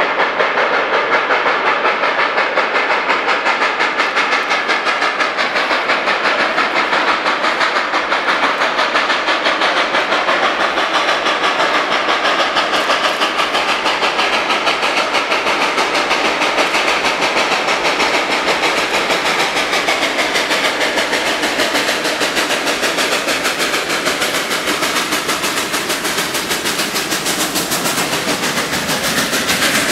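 Steam locomotive working hard with a freight train, its exhaust beating in a fast, even rhythm as it draws near and passes, with the freight cars rolling by on the rails near the end.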